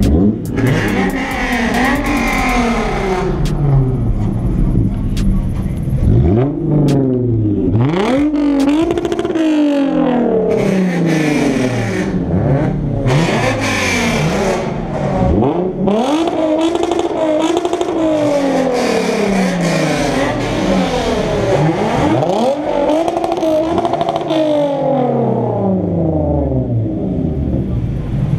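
A car engine revving hard again and again, its pitch climbing sharply and sinking back every second or two.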